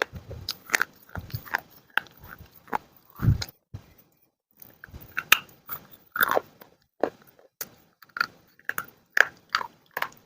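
Close-up biting and chewing of crunchy baked clay: a string of sharp, irregular crunches with a short pause about four seconds in.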